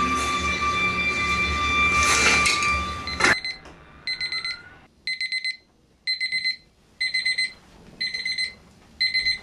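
Music until about three seconds in, then a digital alarm clock beeping: a quick run of high electronic beeps about once a second.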